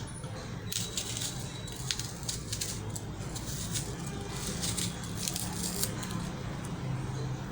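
Irregular light rustling and rattling, a quick string of short crackles, over a low steady hum.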